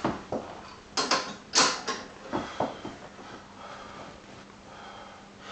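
Metal clanks and clicks from a Rolling Thunder grip handle being handled and settled on a plate-loaded pin, a quick run of sharp knocks about a second in, then quieter rattling.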